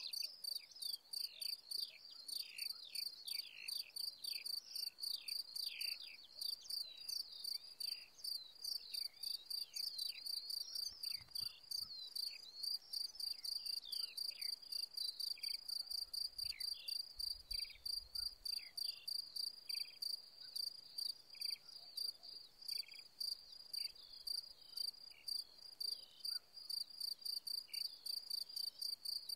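Male common field cricket (Gryllus campestris) singing its calling song: an even run of short, high ringing chirps, about three a second.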